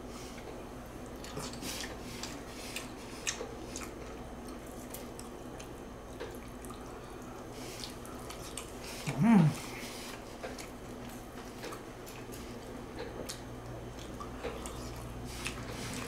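A person eating: wet chewing and mouth-smacking sounds, heard as a scatter of small clicks, with one short vocal sound about nine seconds in.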